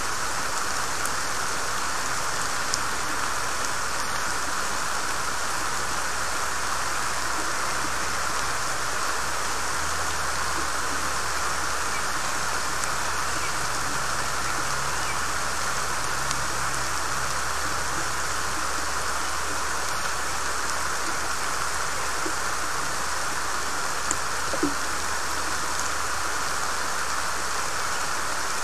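Steady pouring rain falling on the forest, with a few sharper drops ticking now and then.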